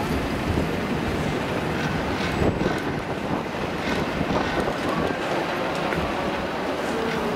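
Single-deck bus engine running as the bus pulls slowly away, with wind on the microphone.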